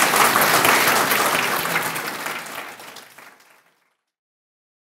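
Audience applauding: many hands clapping together, fading out about three and a half seconds in.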